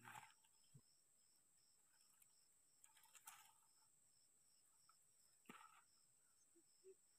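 Near silence with faint crickets chirping: a steady high trill and a regular, rapidly pulsing chirp. A couple of soft brief rustles come about three and five and a half seconds in.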